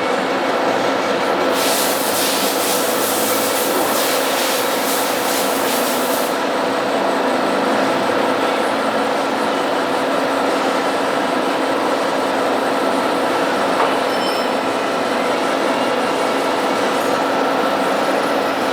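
A 1K62 metal-cutting lathe running steadily, its gearbox giving a constant mechanical whine made of several tones. A brighter hiss joins about a second and a half in and stops about five seconds later.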